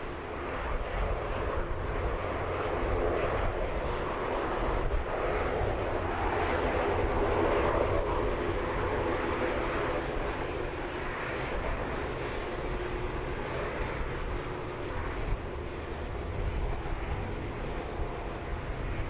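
Airbus A330-800neo's twin Rolls-Royce Trent 7000 turbofans running at taxi power as the airliner rolls past, a steady jet engine rumble and hiss. It swells over the first couple of seconds and is loudest about eight seconds in.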